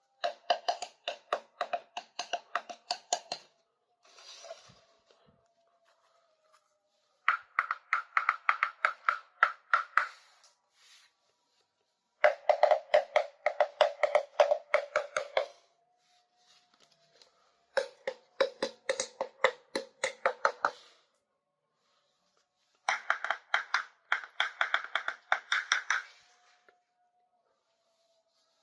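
Rapid tapping on small plastic toy kitchen pieces, in five bursts of about three seconds each with short pauses between, each burst ringing at a different pitch as a different piece is tapped.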